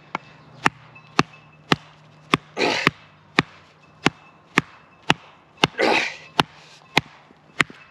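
A wooden baton strikes the spine of a Schnitzel TRI knife in steady, sharp knocks, about two a second, driving it into a knotty piece of wood that will not split. Two short, hard breaths come between the blows.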